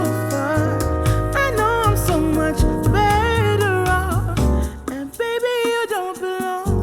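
Pop-soul song with a wavering lead melody over bass and keyboard, played through Sennheiser headphones and picked up by microphones. The bass drops out for about two seconds in the second half.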